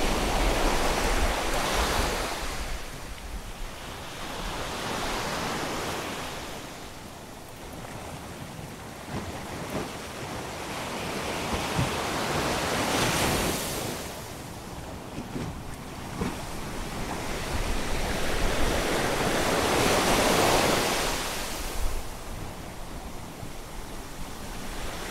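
Sea waves breaking and washing against rocks, the surf swelling and falling back every several seconds.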